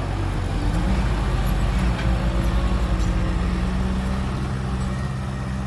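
Heavy vehicle's diesel engine running at a steady speed, throbbing quickly for the first few seconds, then settling into an even hum.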